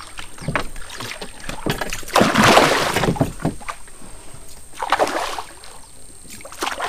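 Water splashing at the surface where a double-propeller topwater lure is being worked along the creek, loudest for about a second around two seconds in, with smaller splashes near five seconds and at the end, and light knocks in between.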